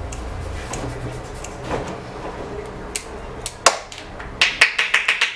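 Barber's steel scissors snipping through a long beard: a few separate snips, then a quick run of about six crisp snips near the end.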